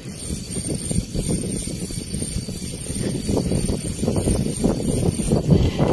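Spinning reel being cranked steadily to retrieve a cast lure, its gears and handle giving a continuous fast rattling whir.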